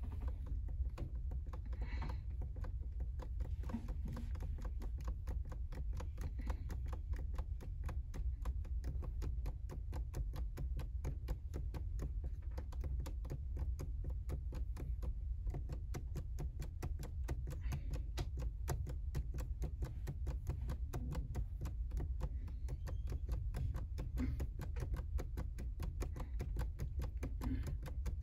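Rapid, evenly spaced clicking, several clicks a second, over a steady low hum.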